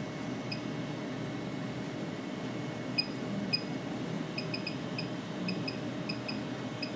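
Keypad beeps from an electrotherapy stimulator: about a dozen short, identical high electronic beeps at irregular spacing, one for each button press as the stimulation parameters are set, over a steady background hum.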